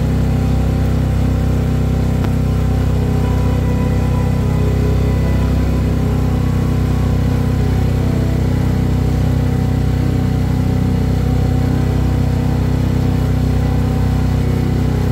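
Motorboat engine running at a steady speed as the boat cruises.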